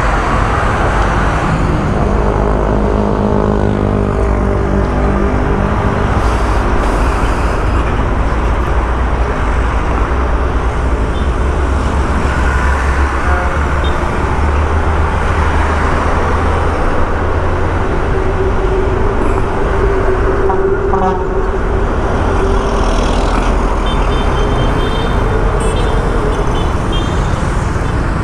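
Steady road traffic and engine noise heard from a moving motorcycle, with a low rumble and wind rush on the microphone; a held droning tone joins in for a few seconds in the second half.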